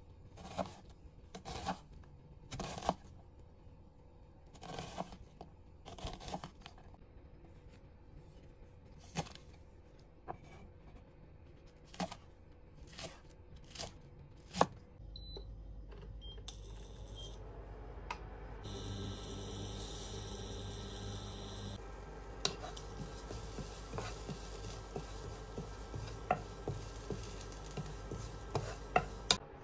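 Slow, irregular knife strokes on a cutting board, about fifteen sharp knocks, then a steady kitchen noise with a low hum that cuts off suddenly near the end.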